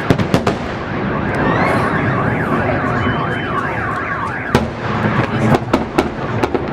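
Fireworks bursting with sharp bangs near the start and again through the second half, while a car alarm wails up and down in the middle.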